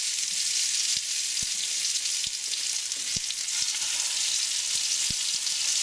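Hot vegetable oil sizzling steadily in a frying pan as bubble and squeak potato cakes go in to fry, with a few soft knocks.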